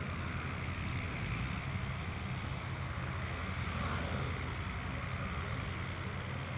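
Distant turboprop engine of a Zlin Z-137T Agro Turbo crop-dusting plane droning steadily in flight, mixed with wind rumbling on the microphone.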